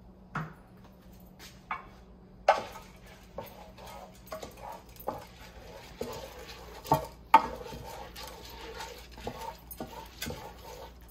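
Wooden spoon stirring raw rice and sliced onions in a square nonstick pan: a scratchy scraping of grains, broken by sharp knocks of the spoon against the pan. The scraping starts a couple of seconds in.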